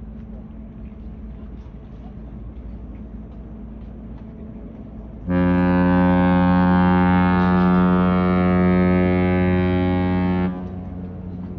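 The cruise ship Renaissance's horn sounding one long, deep blast of about five seconds, beginning about five seconds in and cutting off sharply: a farewell signal as the ship leaves port. A low background rumble fills the time before it.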